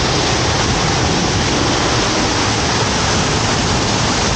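Large waterfall pouring close by: a loud, steady, even rush of falling water, heard from the rock shelter behind the falling curtain.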